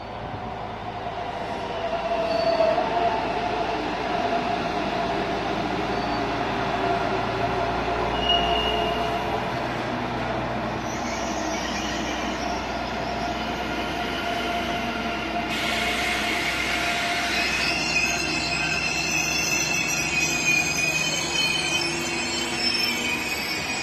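Freight train wagons rolling slowly over the tracks, their wheels squealing steadily in several tones. Higher-pitched squeals join in over the last third.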